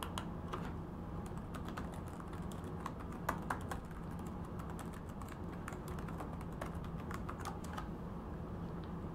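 Computer keyboard keys clicking as a username and password are typed, in quick irregular runs that stop about a second before the end, over a faint steady low hum.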